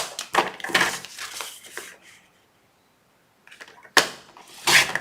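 Cardstock being handled and cut at a craft table. There are about two seconds of scraping and rustling with light knocks, a short hush, then a sharp click about four seconds in and another brief scrape.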